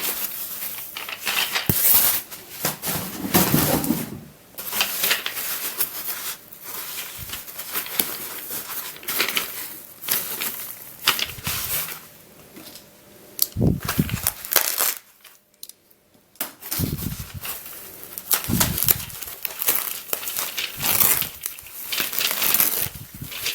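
Packaging being opened by hand: irregular crinkling, crumpling and tearing, with a short pause a little past the middle.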